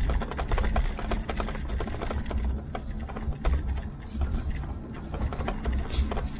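Dense, irregular clicking and rattling from a Tern HSD cargo bike and its handlebar-mounted camera as it rolls along a rough path, over a low, uneven rumble.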